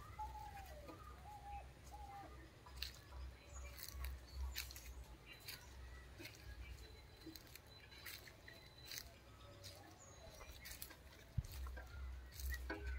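Footsteps on dry leaf litter: scattered rustles and crackles. A few short bird calls come in the first second, over a low rumble.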